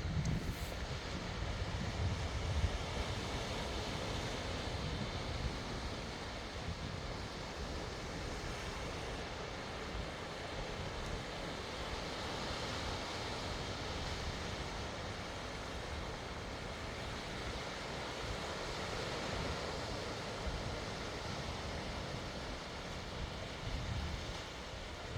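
Sea surf washing on the shore in a steady wash, with wind gusting on the microphone, strongest in the first few seconds.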